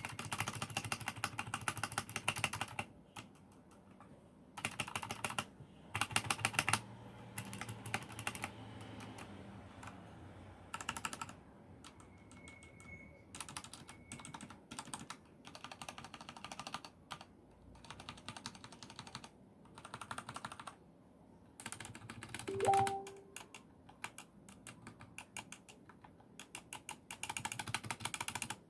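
Royal Kludge RK61 mechanical keyboard with RK Brown switches: its stabilized keys are pressed rapidly in repeated bursts of clacks, with short pauses between bursts. A brief rising chirp sounds about three-quarters of the way through.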